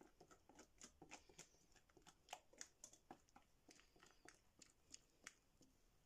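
Wire whisk scraping and tapping against a glass mixing bowl as chocolate batter is scraped out of it: faint, irregular clicks, several a second.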